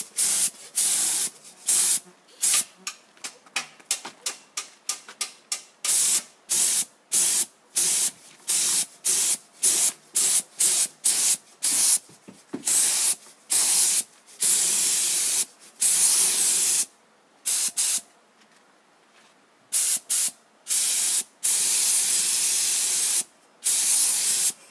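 Compressed-air paint spray gun hissing in trigger bursts as paint is sprayed onto a car wheel rim: many quick squirts of under half a second, then longer passes of a second or two, with a pause of about two seconds past the middle.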